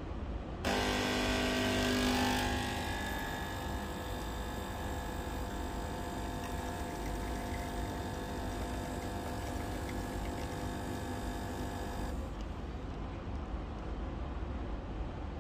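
De'Longhi Dedica espresso machine's vibratory pump buzzing while pulling a single espresso shot. It starts abruptly under a second in, is loudest for the first couple of seconds, then hums steadily and cuts off about twelve seconds in.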